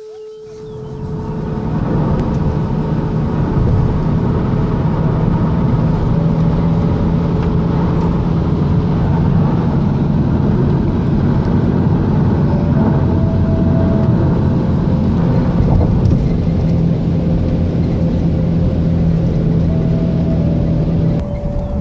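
An engine running steadily with a low hum. It builds up over the first two seconds and then holds at a constant level.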